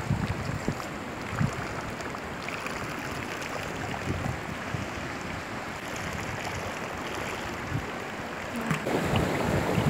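Steady outdoor rush of wind and water by the sea, with a few low thumps on the microphone near the start. It grows louder and rougher about nine seconds in.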